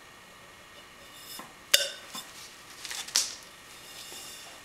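A few light metallic clicks and taps from a thin aluminium can being handled and shifted on an aluminium channel while fine-line tape is laid around it. The sharpest click, with a brief ring, comes about a second and a half in, and a second strong tap comes about three seconds in.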